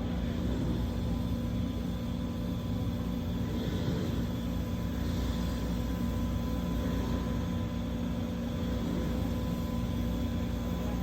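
Steady low drone of a sternwheel riverboat's machinery under way, with faint steady hum tones and no change throughout.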